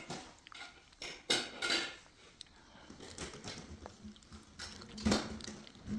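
A cat chewing raw fish: a handful of short clicks and knocks, grouped just over a second in, with the loudest about five seconds in.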